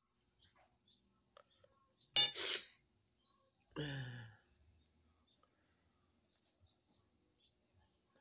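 A small bird chirping over and over, short high rising chirps about twice a second. A sharp clatter about two seconds in is the loudest sound, and a brief low voice follows about four seconds in.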